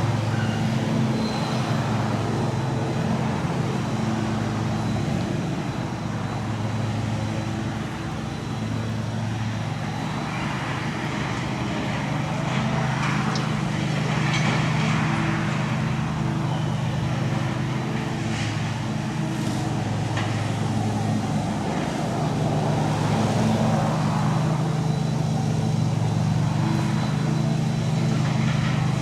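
Large excavator's diesel engine running steadily, its pitch and level shifting a little as it works, with scattered brief crunches and scrapes of demolition debris.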